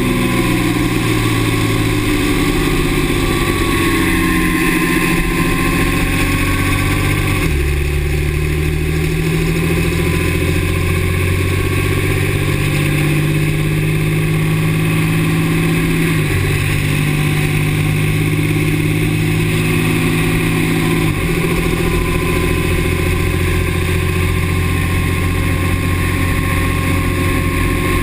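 2009 Dodge Ram's 6.7 L Cummins turbo-diesel inline-six running, its engine note stepping abruptly in pitch three times. A thin high tone sits over it at the start and again near the end.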